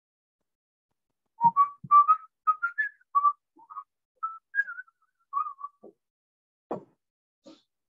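A man whistling a short tune, a quick run of notes that wander up and down, with a few soft thumps mixed in and one more thump near the end.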